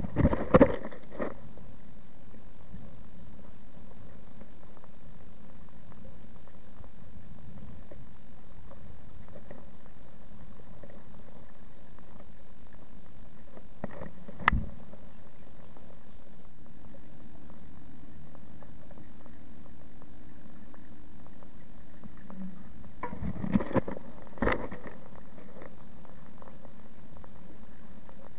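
Great tit nestlings in a nest box giving a rapid stream of high-pitched begging calls, which stop for several seconds past the middle and then start again. A few sharp knocks of the adult bird moving at the nest come at the start, once mid-way, and again as the calling resumes.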